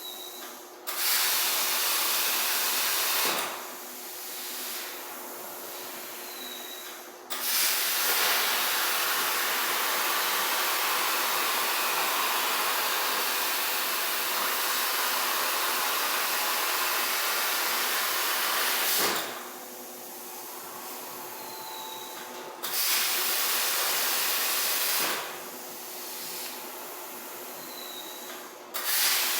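CNC plasma cutter torch hissing as it cuts metal, in four cuts that each start and stop suddenly, the longest about twelve seconds, with quieter pauses between them.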